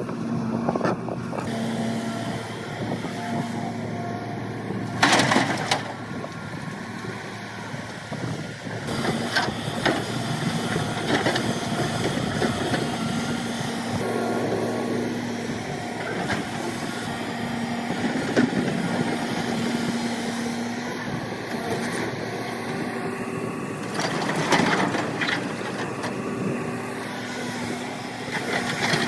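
Excavator engine running steadily while the bucket digs rock, with loud crunching, scraping bursts several times; the loudest come about five seconds in and near the end.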